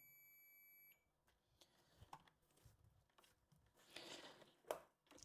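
Faint steady high beep of a multimeter's continuity buzzer, cut off about a second in: the probes are reading a short across the rectifier bridge, which has broken down. Then near silence with a few faint clicks.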